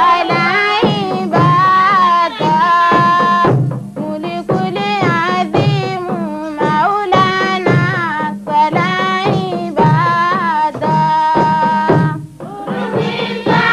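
Background music: a melody with bending, wavering notes over a drum beat.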